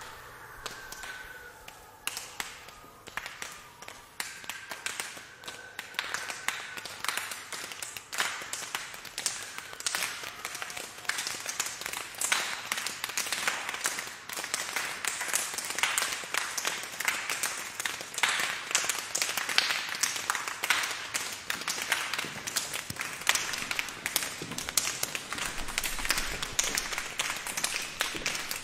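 Hand clapping, scattered claps at first that thicken from about eight seconds in into a dense, uneven patter like applause. Faint held tones sound under the first few seconds.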